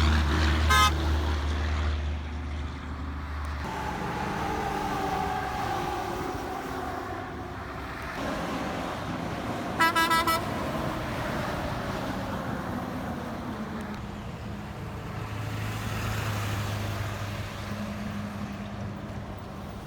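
Heavy trucks passing on a highway: a deep engine rumble for the first few seconds, then a tone falling slowly in pitch as a vehicle goes by. About ten seconds in a vehicle horn sounds in a few quick blasts. A second engine rumble comes up later.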